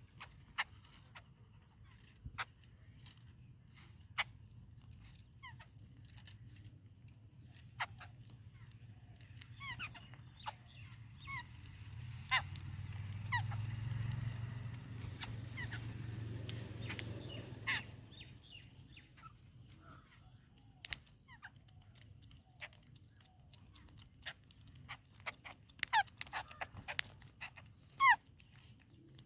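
Birds at a feeding spot giving scattered short, falling chirps amid sharp clicks, busiest near the end. A low rumble swells up for a few seconds in the middle.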